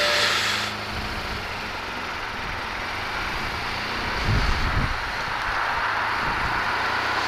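Motorcycle engine running as the bike rolls slowly on a wet road, under a steady hiss of wind and spray on the microphone.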